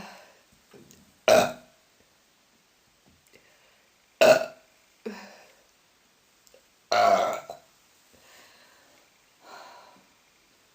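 A woman burping loudly, one burp after another: three big burps about three seconds apart, the third the longest, with smaller burps between them.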